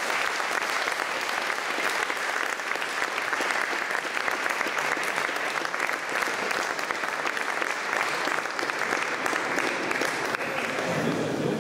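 Audience applause in a lecture hall: many hands clapping in a dense, steady patter that thins out near the end.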